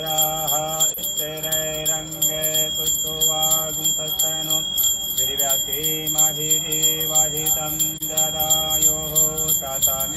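A bell rung continuously, a steady high ringing, over devotional music carrying a melody.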